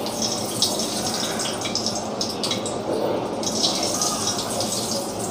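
Dried red chillies sizzling in hot oil in a kadai: a steady sizzle with scattered sharp crackles.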